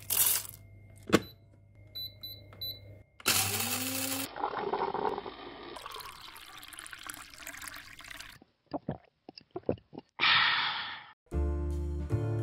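A quick run of coffee-making sounds: coffee beans clattering into a coffee machine, three short electronic beeps, a machine running, then coffee pouring from a glass carafe into a mug. Near the end, jazzy background music with a walking bass comes in.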